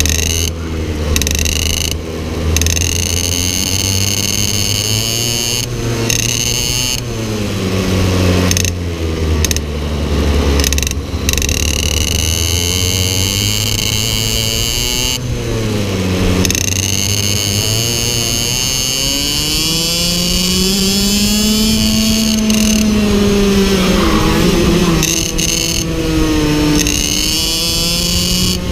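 IAME X30 Super 175 cc two-stroke shifter kart engine racing flat out. Its note climbs and falls again and again as it changes gear and slows for corners, with brief cuts in the sound.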